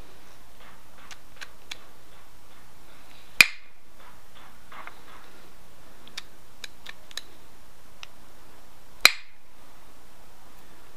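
Stone arrowhead being pressure-flaked with an antler tine: two sharp clicks, about six seconds apart, as flakes pop off the edge, with a few faint ticks between them.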